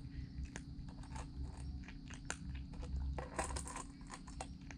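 Cat crunching and chewing food from a stainless steel bowl: irregular crisp crunches and clicks, coming thickest a little past three seconds in.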